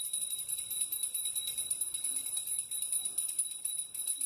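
Steady, high-pitched bell-like ringing with a jingling shimmer.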